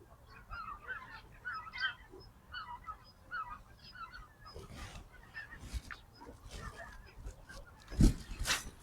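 A flock of waterfowl calling: many short overlapping honking calls throughout. A loud thump comes about eight seconds in, followed by a brief rush of noise.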